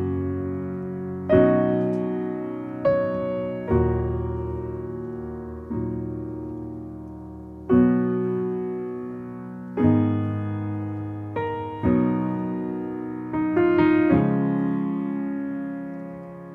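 Slow solo piano music: chords struck one to two seconds apart, each left to ring and fade.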